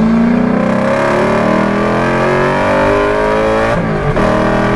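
Lexus 1UZ-FE VVT-i V8 in a small pickup truck accelerating hard, heard from inside the cab. The engine note climbs steadily for about three and a half seconds, drops briefly at a gearshift, then starts climbing again.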